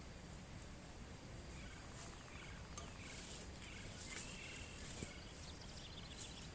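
Birds chirping, a run of short calls from about a second and a half in, over a faint steady background hiss, with a few brief scratchy rustles.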